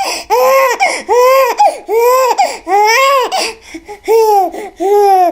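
A high-pitched, childlike voice letting out a run of about nine short cries, each rising then falling in pitch, roughly two a second.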